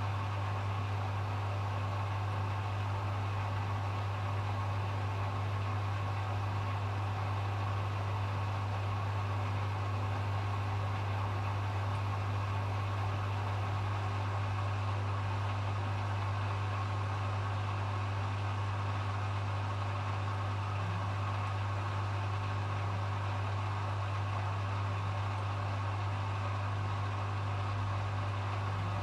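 Hoover HW411AMC washing machine spinning at a steady speed during its final spin: a constant low hum with an even whirring rush above it.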